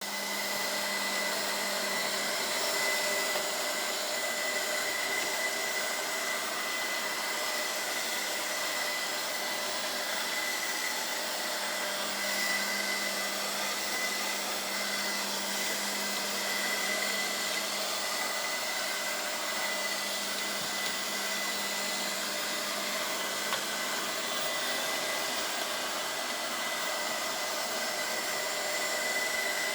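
ILIFE V5s Pro robot vacuum cleaner running: a steady motor whir with a constant high whine.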